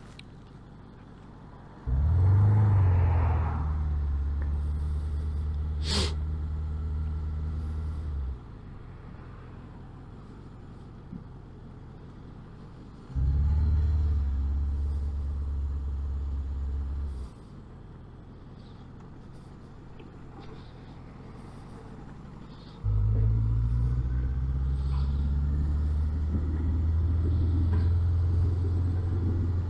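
Suzuki GSX 750 motorcycle's inline-four engine droning under way, heard through a lavalier mic inside a loud helmet. Three stretches of steady low drone, each starting suddenly and lasting about four to six seconds, alternate with quieter spells.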